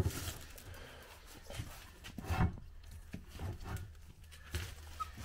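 Scattered light knocks and handling sounds as the bead lock ring is worked into place against the wheel rim of a Sherp tire, over a steady low hum.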